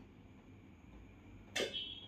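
Quiet kitchen room tone, then about one and a half seconds in a single short clink of a metal serving spoon against a stainless steel pot, ringing briefly.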